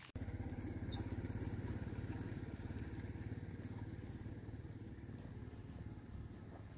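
A small engine running steadily with a fast, even pulse, slowly fading. Faint short high chirps are scattered over it.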